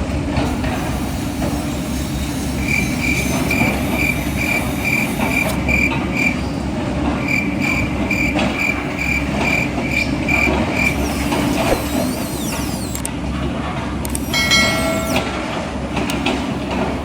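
Reversing beeper of an RC construction model sounding at about three beeps a second in two runs, over a steady mechanical din; a short pitched sliding sound comes near the end.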